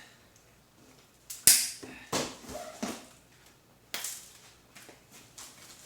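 Thick plastic packing pieces being cut and snapped with pliers: a few sharp cracks and crunches, the loudest about a second and a half in, another near four seconds.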